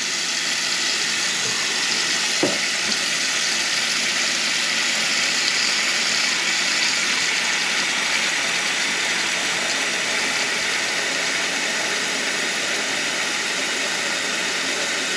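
Kitchen faucet running steadily into a stainless steel sink, the stream splashing onto the strainer basket that stops the drain so the basin fills and builds up pressure. There is a light click about two and a half seconds in.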